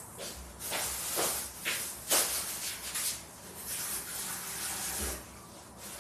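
Irregular rustling noises: a string of short hissy bursts, some louder than others, with no steady rhythm.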